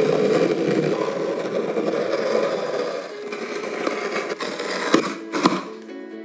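A workshop tool working on material with a steady scraping, grinding noise that slowly fades, then two sharp knocks about half a second apart. Music starts near the end.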